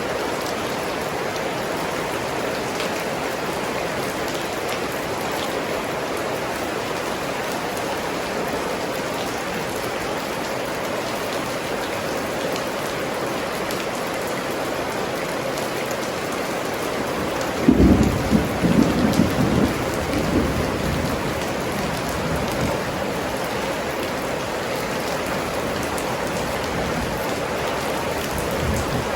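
Steady rain falling. About two-thirds of the way through, a loud, low roll of thunder breaks in and dies away over a few seconds.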